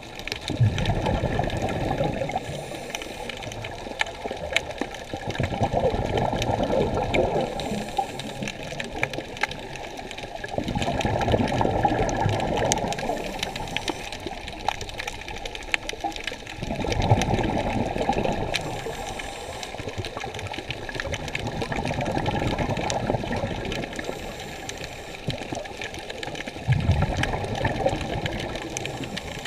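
Water rushing and swirling, heard underwater: a muffled low rush that swells and fades about every five seconds, with many faint clicks throughout.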